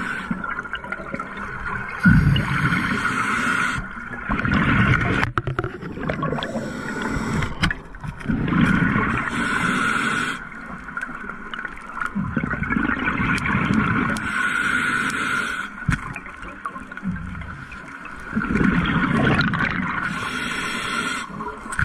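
Scuba diver breathing through a regulator underwater: a hiss on each inhale alternating with a gurgling rush of exhaled bubbles, repeating every few seconds.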